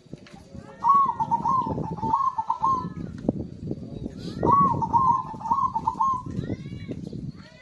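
Zebra dove (perkutut) cooing in two rhythmic phrases of its song, one starting about a second in and another about four and a half seconds in.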